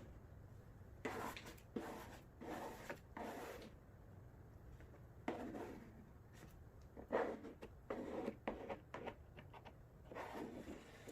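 Squeegee swiping over wet vinyl film to push water out from under it: a run of short scraping strokes in several bursts, with pauses between them.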